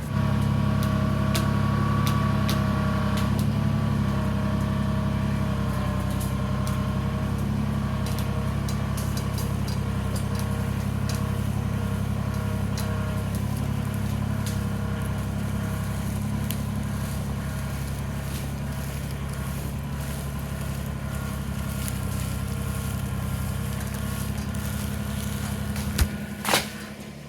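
Kubota BX23S subcompact tractor's three-cylinder diesel running steadily under load while pulling a log on a rope, with scattered sharp cracks throughout and two louder knocks near the end.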